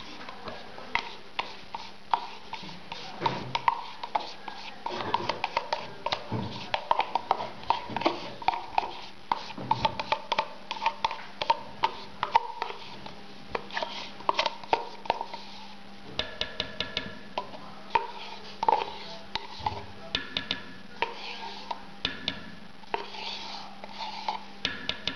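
Crème fraîche being worked in a bowl: a utensil clicks and taps irregularly against the bowl, several times a second, over a steady low hum.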